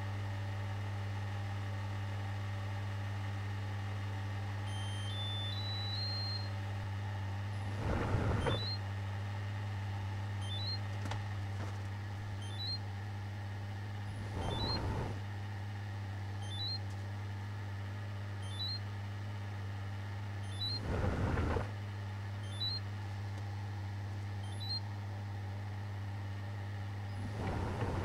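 Electrolux EW7H578S heat-pump tumble dryer running with a steady low hum while the laundry tumbles in the drum. A louder swish of the load comes about every six and a half seconds.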